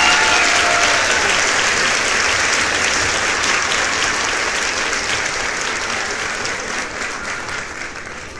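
A group of people clapping continuously, the applause slowly dying away toward the end.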